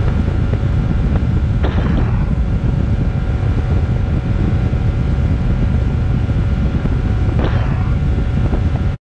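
Honda four-stroke outboard motor running at speed as the boat planes, its steady engine hum mixed with rushing water and wind on the microphone. Two brief louder rushes of noise come about two seconds in and a second and a half before the end.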